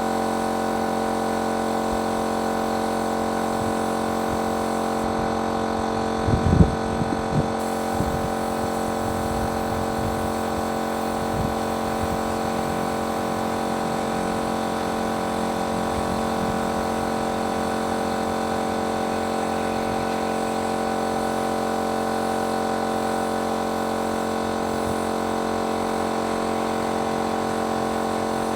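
Motor of a paint-spraying machine running steadily with an even hum, with a few short knocks about six to eight seconds in.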